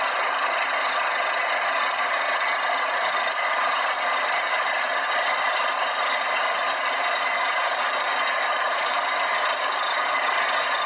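Air borewell drilling rig running steadily: a loud, unbroken noise with several thin, high, steady whining tones on top.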